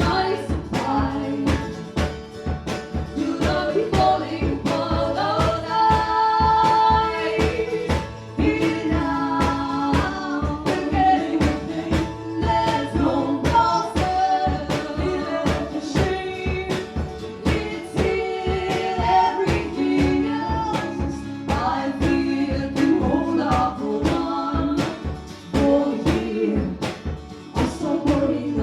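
Live music: female singing over a steady, evenly strummed rhythm.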